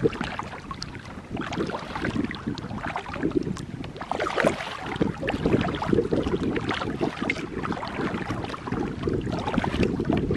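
Wind buffeting the microphone with a steady low rumble, over irregular splashing and lapping of choppy water against a moving kayak's hull.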